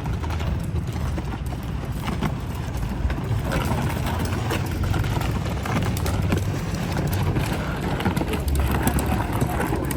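City street sound: a steady low traffic rumble with a run of short, sharp taps on pavement that grows busier about three seconds in.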